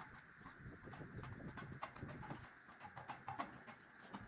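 Faint, irregular light clicks and taps from hand work on sheet-metal roof coping, a few a second.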